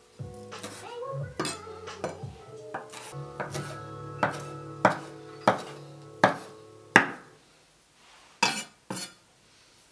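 Chef's knife chopping curly parsley on a wooden cutting board: a run of sharp knocks of the blade against the board, the loudest ones about a second apart in the second half, over soft background music.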